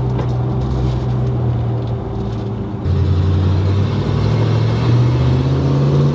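Chevy C10 pickup's engine and tyre noise heard inside the cab while driving. About halfway through it gets louder with a deeper note added, then rises slowly in pitch as the truck speeds up.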